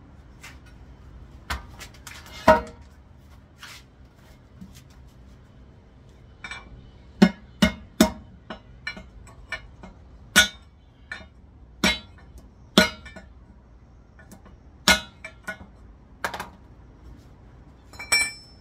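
Metal parts and hand tools clinking and knocking together in irregular sharp strikes, some with a short ringing, as a manual transmission is worked on.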